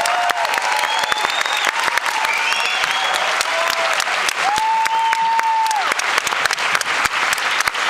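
Large theatre audience applauding and cheering, dense clapping throughout, with whoops rising over it and one long held whoop about halfway through.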